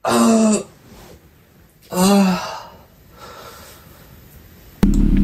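A man's voice groaning twice, about two seconds apart, as he stretches and yawns on waking, followed by soft breathing.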